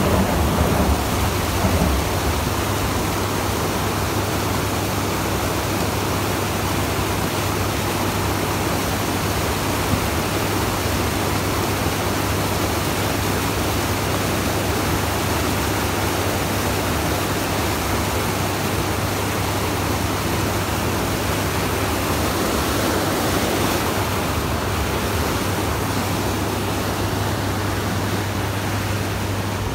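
River rapids rushing close by: a steady, unbroken wash of whitewater.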